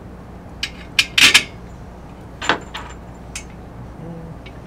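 Screws and nuts clinking and tapping against a metal C-channel robot chassis frame as they are handled and set by hand: a quick cluster of sharp metallic clicks about a second in, then a few scattered taps.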